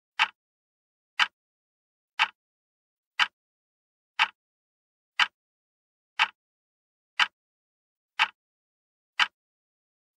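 Wall clock ticking, one sharp tick each second, about ten ticks with dead silence between them.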